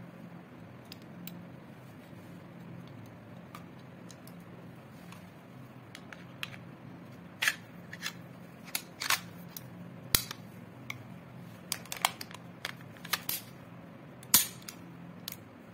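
Sharp metallic clicks and clacks of a Zigana 9mm pistol's slide being fitted back onto the frame and worked, a dozen or so irregular clicks starting about six seconds in, over a faint steady hum.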